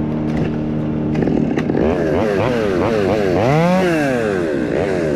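Chainsaw idling, then revved up and down over and over with the throttle, with one longer, higher rev a little past three seconds in.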